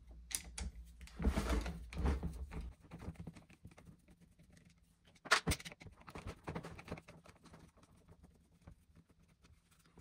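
Phillips screwdriver backing two screws out of the plastic rear shell of an oscillating multitool: quiet scattered clicks and rubbing, busiest in the first few seconds, with one sharper knock a little past five seconds in.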